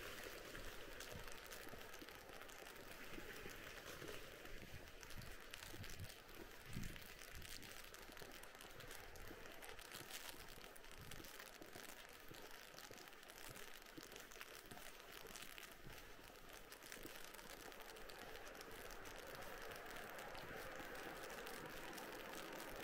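Faint footsteps crunching on snow at a walking pace, over a steady faint hiss.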